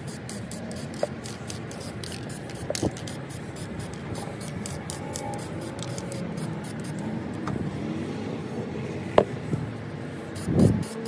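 Aerosol spray paint can spraying in quick short bursts of hiss. It pauses for several seconds midway and starts again near the end. There is a sharp knock and a duller thump just before the spraying resumes.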